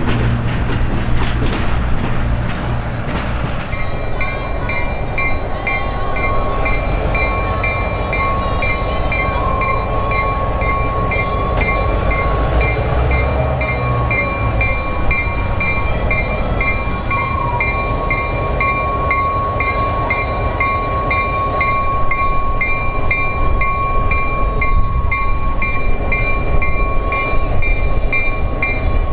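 A train running past on the rails with a continuous rumble. About four seconds in, a steady high ringing tone with a regular repeating beat starts and carries on over the train noise.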